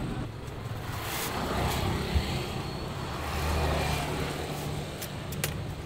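Street traffic: a steady low engine rumble that swells as a motor vehicle passes about three to four seconds in. A single thump comes just after two seconds, and a couple of sharp clicks a little after five seconds.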